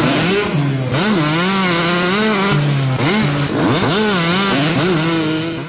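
Motorcycle engine revved up and down over and over, its pitch rising and falling in quick sweeps, cutting off abruptly near the end.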